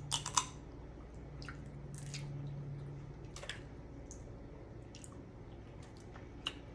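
Blue crab being picked apart and eaten: scattered cracks and clicks of shell breaking, the sharpest a couple of times near the start, with chewing.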